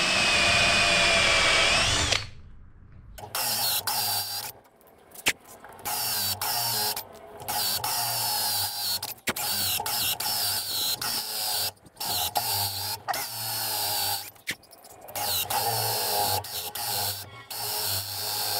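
Cordless drill driving a 35 mm hole saw into a solid timber vanity top. It runs steadily for about two seconds, stops, then cuts in a string of short bursts with brief pauses between them.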